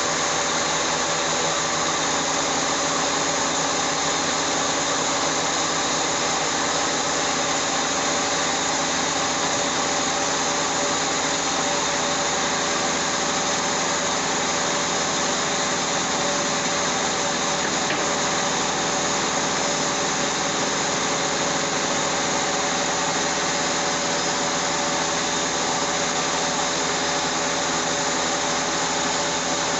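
Honda Civic's 1.6-litre non-VTEC four-cylinder engine idling steadily just after a coolant refill, left running so trapped air can bleed out of the cooling system.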